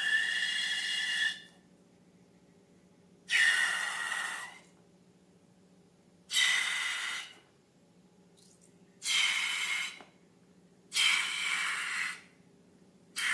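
A series of hisses, each about a second long, coming every two to three seconds.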